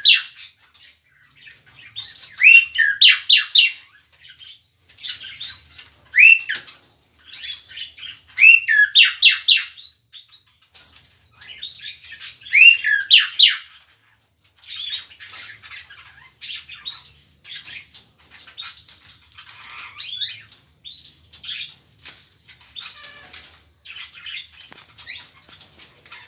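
Tropical mockingbird singing: a string of varied phrases of quick whistled and chattering notes, several of them opening with the same upward-sweeping whistle. The phrases are loudest in the first half and come softer and more scattered later.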